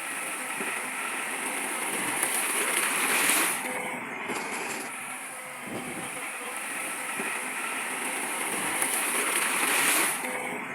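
Heavy earth-moving machinery running: a steady mechanical noise with a hissing edge that swells twice and drops back sharply each time.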